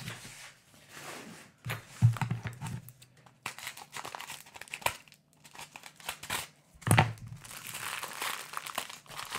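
Newspaper and packing-tape wrapping being crinkled and torn off a small package by hand, in irregular spells with a few sharp rips. Louder handling knocks come about two seconds in and again about seven seconds in, and the crinkling is busiest near the end.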